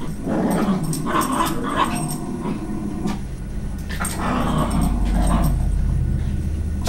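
Two small dogs, a Yorkshire terrier and a black-and-white dog, growling in two rough stretches as they play-fight, with a pause in between. A low hum comes in about halfway through.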